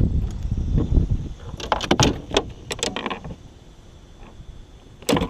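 Clatter and knocks of handling aboard a kayak while a bass is being landed, over low rumbling. Quieter from about three seconds in, with one more knock near the end.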